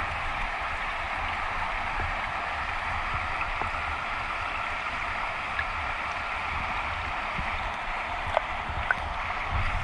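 Creek water rushing, heard with the microphone underwater in a GoPro housing: a steady muffled rush with a low rumble underneath. Two faint clicks about half a second apart come near the end.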